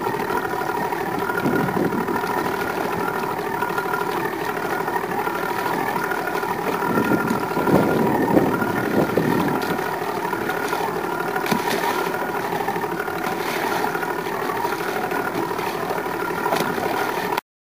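Boat motor running at a steady idle, a wavering hum over water and wind noise that swells briefly about halfway through.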